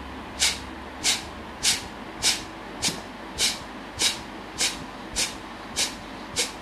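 A man doing kapalbhati breathing: a steady run of short, forceful exhalations through the nose, each a sharp hissing puff, about three every two seconds, eleven in a row.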